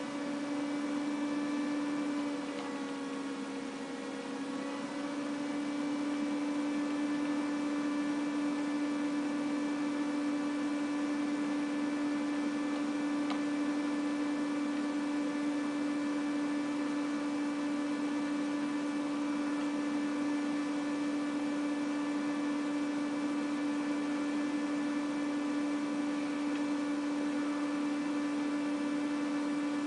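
A steady hum with a clear pitch and several overtones above it. It sags slightly in pitch and loudness a few seconds in, then holds steady.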